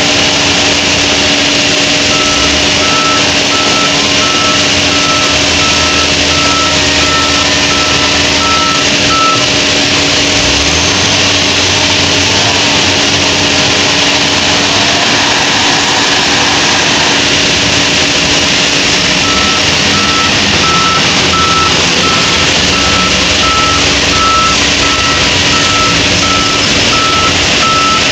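Diesel engines of a wheel loader and a loaded dump truck running steadily, with a reversing alarm beeping about twice a second in two spells of several seconds, the second near the end.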